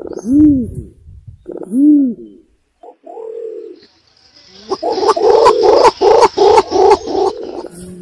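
Green imperial pigeon (pergam) lure calls: two deep coos that rise and fall in pitch, a short low note, then a fast, loud run of rough pulsed notes with sharp clicks, about four a second, lasting nearly three seconds.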